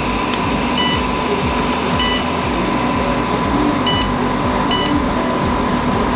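Aixun H314 hot air rework station running, its blower giving a steady rushing hiss with a faint hum, while the unit beeps briefly four times as its buttons and air knob are pressed.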